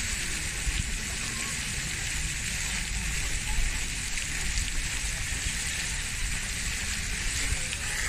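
Steady hissing outdoor ambience with a low, uneven rumble underneath; no clear bird calls stand out.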